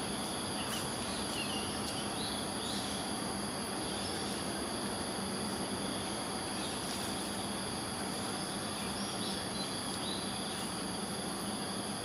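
Steady insect chorus, a continuous high buzzing at several pitches over a low background hum, with a few short bird chirps.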